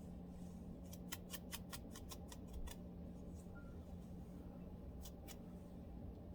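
Lice comb scratching at a dry, flaky scalp: a quick run of about eight short scratchy strokes, then two more near the end, over a steady low hum.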